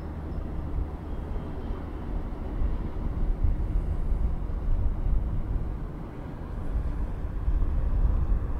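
Low rumble of city street ambience, swelling and easing a couple of times, with no distinct events standing out.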